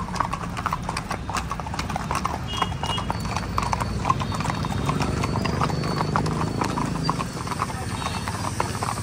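Hooves of a group of Marwari horses clip-clopping on a road, many hoofbeats overlapping in an irregular patter.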